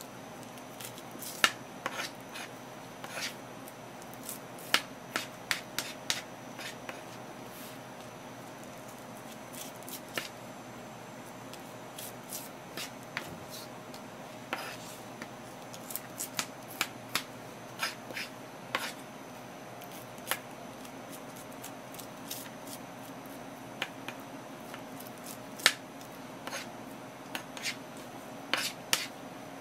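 Metal spoon scraping the seeds out of halved boiled okra pods and clicking against the cutting board, in scattered sharp taps and scrapes about once or twice a second. A steady low hum runs underneath.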